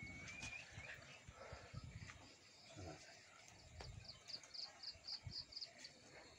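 Near silence: faint rural outdoor ambience. A short whistled note sounds at the start, and a quick run of about seven high, evenly spaced chirps, about four a second, comes a little past the middle.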